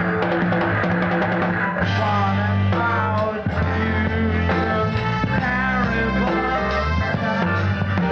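Live rock band playing with drums, bass and electric guitar. The band holds a chord for the first couple of seconds, then comes in fuller, with a high line wavering in pitch above a steady bass.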